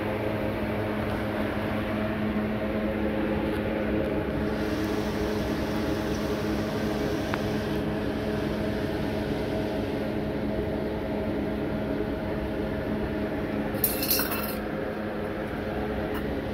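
Steady mechanical hum of a running motor, one even tone with several overtones. A brief scratchy noise cuts in near the end.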